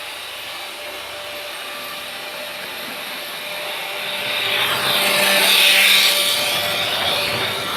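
Freight train rolling past, a steady rushing noise of wheels on rail that builds to its loudest about six seconds in and then eases off.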